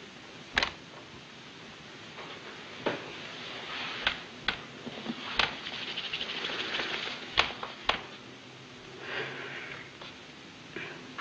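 Irregular sharp clicks and knocks, about seven in all, with soft rustling between them; the loudest knock comes about half a second in.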